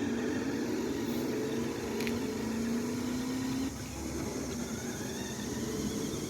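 Electric motor and gears of a toy remote-control Hummer H2 car whining as it drives, the pitch rising a little before easing off a little over halfway through.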